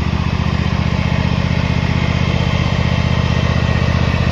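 Riding lawnmower engine running steadily with a fast, even pulse, loud: a "loud ass lawnmower".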